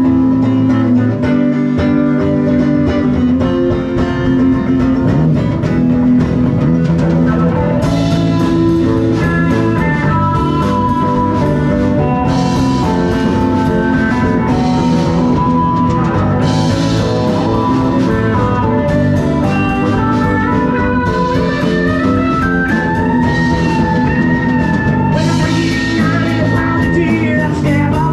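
A live blues-rock band plays a song with acoustic guitar, electric bass, electric guitar and drum kit. The cymbals come in about eight seconds in, and there are bending lead lines near the end.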